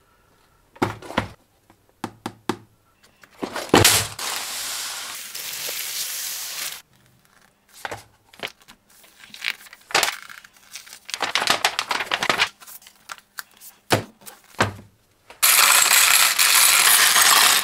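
Plastic building bricks and their packaging being handled: sharp plastic clicks and taps, two stretches of crinkling packaging, and near the end about two seconds of bricks rattling steadily in a clear plastic tub.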